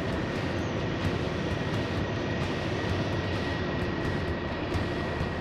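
Steady low rumbling drone aboard a fishing boat on the river, with a faint thin high whine held steady throughout.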